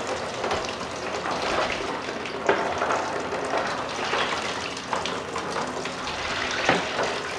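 Tap water pouring into a plastic darkroom tray and splashing over a sheet of photographic paper, with short sloshes as gloved hands move the paper about in the rinse water.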